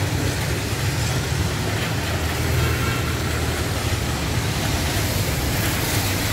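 Steady rain on a wet town street, a constant hiss, with the low rumble of traffic and engines running under it.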